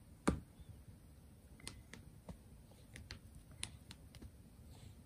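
A cat batting at a feather wand toy on a mat: light, irregular taps and clicks, one louder near the start and a scatter of fainter ones after.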